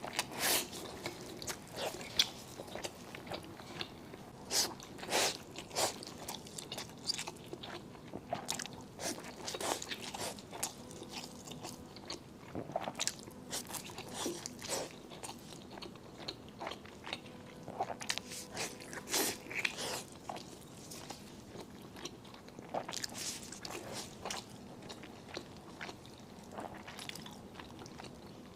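Close-up eating sounds of a person eating spicy fire noodles (Buldak): chewing and biting with many short, sharp, irregular mouth clicks.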